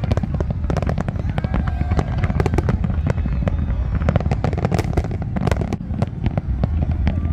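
Aerial fireworks display: many shells bursting in rapid succession, a dense run of sharp bangs and crackles over a continuous low rumble.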